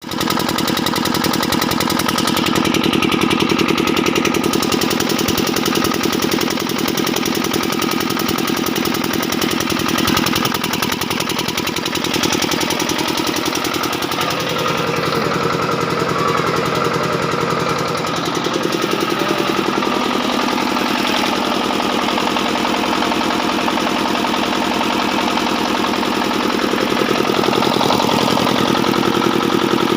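A generator's engine running continuously with a fast, even knocking pulse. Its note shifts about halfway through and again a little later.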